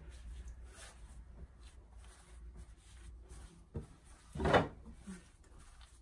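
Hands rolling a thin sheet of filled dough on a kitchen counter: soft rubbing and handling noise, with a knock a little before four seconds in and a louder short thud about half a second later.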